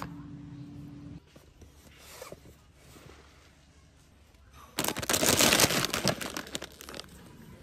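A large plastic bag of nacho chips crinkling loudly as it is handled and pulled off the shelf, for about two seconds near the end. Before that, a steady low hum cuts off about a second in, followed by faint rustling.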